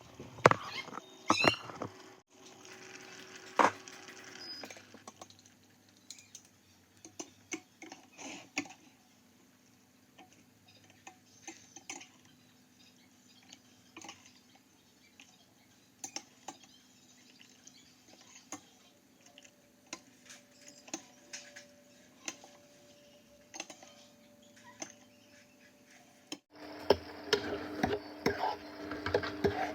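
Cutlery and dishes clinking and knocking now and then, in scattered single clicks.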